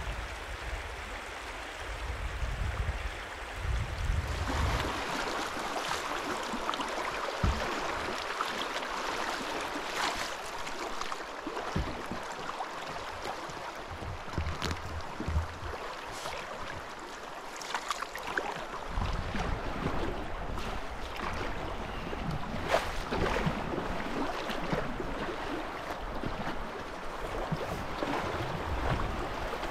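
Fast river water rushing and slapping around a canoe, with scattered short splashes and knocks. A low wind rumble on the microphone comes and goes, at the start and again for the second half.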